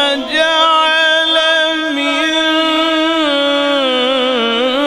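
A man reciting the Quran in a melodic, chanted style, drawing out a long sung note whose pitch wavers and turns in ornaments.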